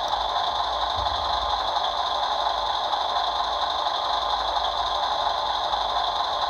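Steady simulated diesel engine idle from the RC model truck's sound module, played through its small speaker.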